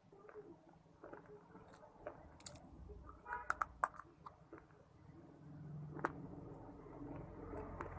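Close-up biting and chewing of soft, crumbly earthy blocks (edible clay or shale-type pieces) with a soft crunch. A cluster of crisp crackles comes about three to four seconds in, then a single sharp crack about six seconds in.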